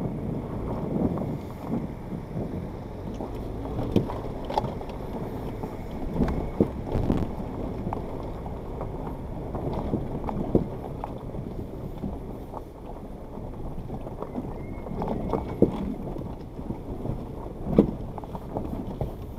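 Suzuki Jimny crawling over a dry riverbed of loose rocks: a low steady rumble of the engine and the tyres grinding on stones, with irregular knocks and clunks as the wheels drop over rocks.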